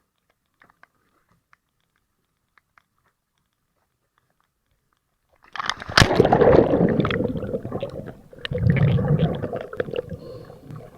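Scuba diver's exhaled air bubbling and gurgling past an underwater camera. After a near-silent stretch with faint clicks, it starts suddenly about halfway through with a sharp knock and comes in two loud surges, a short dip between them.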